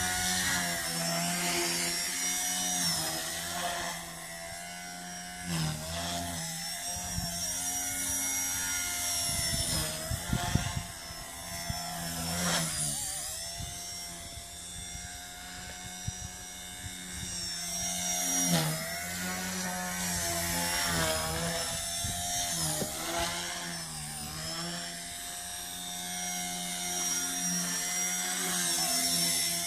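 Blade mCP X BL micro RC collective-pitch helicopter in flight: the high whine of its brushless motor and spinning rotors. The pitch dips and recovers several times as the throttle and rotor speed change.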